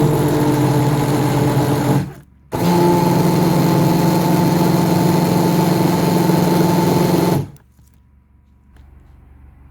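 Electric blender running in a thickening, cooling conditioner emulsion, keeping it from separating. It runs steadily for about two seconds, stops briefly, then runs again for about five seconds and cuts off.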